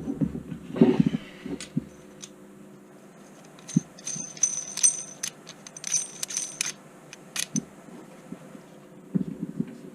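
Small metal clinks and taps from the brass parts of a PL-259 coax connector being handled and screwed together, a cluster of light, ringing ticks in the middle.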